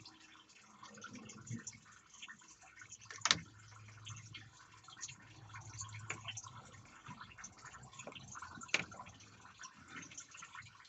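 Faint dripping and trickling of engine coolant with small ticks and crackles, as the top radiator hose is worked loose. Two sharp clicks stand out, about three seconds in and again near nine seconds.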